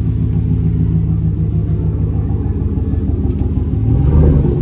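Chevrolet Silverado's 6.0-litre V8 running with its muffler deleted, a deep steady exhaust rumble at idle. About four seconds in it is revved up briefly and gets louder.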